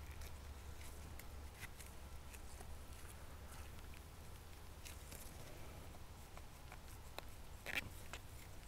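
Faint scattered scratches and light clicks of a patch-wrapped toothbrush being scrubbed into a rifle part and the part being handled, with a sharper click near the end, over a low steady background rumble.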